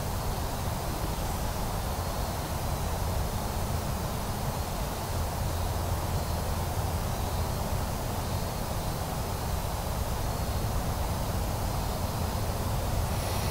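Steady outdoor background noise: a low rumble with a fainter hiss above it and no distinct events.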